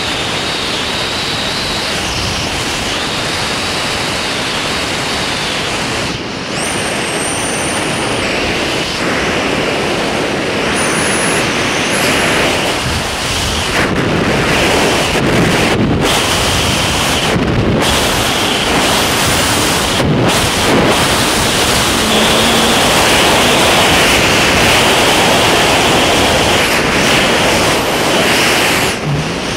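Steady rushing wind buffeting a helmet-mounted camera's microphone during a parachute descent under an open canopy, with a brief dip about six seconds in.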